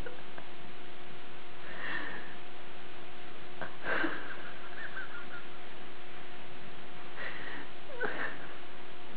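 Guinea pig sniffing, four short snuffles a second or two apart, over a steady faint hum.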